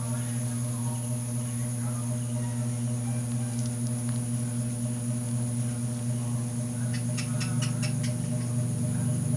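A steady low electrical-sounding hum. About seven seconds in, a quick run of about six faint scratchy clicks sounds over a second or so.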